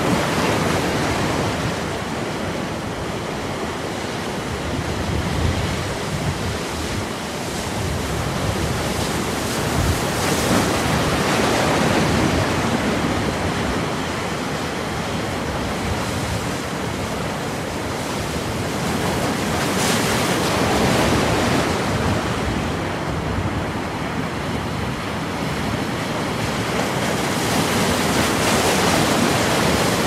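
Sea waves breaking and washing up a pebble beach: a steady surf hiss that swells and eases every several seconds as each wave comes in.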